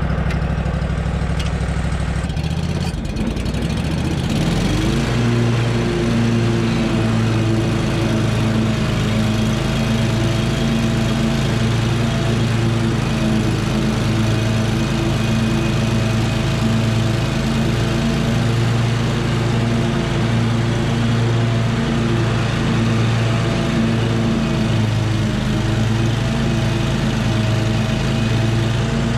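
Scag V-Ride II stand-on zero-turn mower engine running. About three to five seconds in it revs up from a lower speed to a higher, steady throttle, then holds there while mowing overgrown Bermuda grass.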